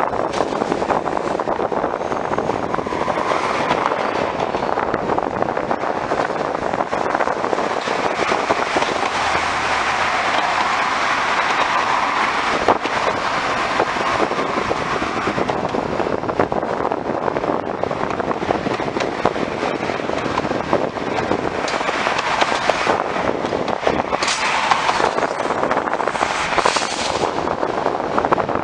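Bilevel passenger train cars rolling through a rail yard: a steady rumble and rush of wheels on track, broken by many sharp clicks and clacks as the wheels cross rail joints and switches.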